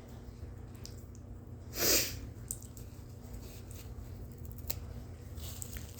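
A single short, sharp burst of breath from a person, about two seconds in, with faint clicks and rustles around it.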